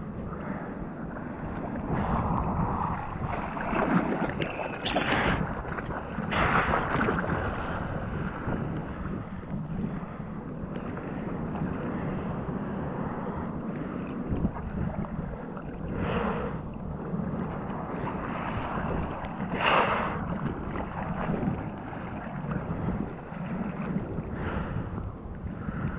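Ocean water sloshing and splashing right at the surface as the swell lifts and drops, with about four sharper splashes and wind buffeting the microphone as a low rumble.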